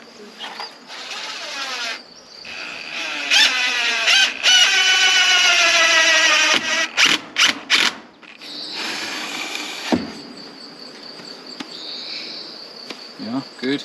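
Cordless drill driving screws into wood: a few short runs, then a long loud run whose motor whine drops in pitch as the screw bites, and a few quick bursts after it. After that, insects chirr steadily.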